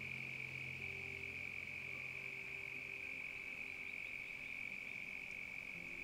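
Frog chorus at dusk: a steady, high-pitched trilling drone.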